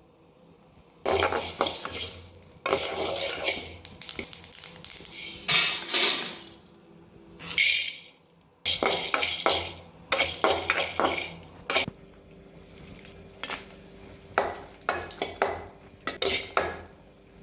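A metal spoon or ladle stirring and scraping around a metal cooking vessel, in long scrapes at first and then in quicker clinks and knocks against the pot.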